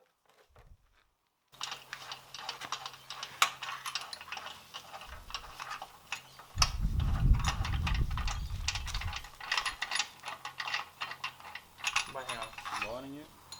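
A hand ratchet clicking and small metal parts clinking, starting about a second and a half in. A low rumble runs for about two and a half seconds in the middle.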